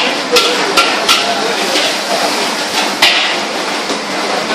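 Metal spatula clanking against a wok as char koay teow is stir-fried: several sharp strikes, three in the first second or so and another about three seconds in, over a steady hiss.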